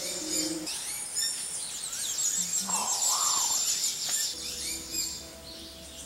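Birds chirping in a high, dense, continuous chorus, with soft music of held chords underneath.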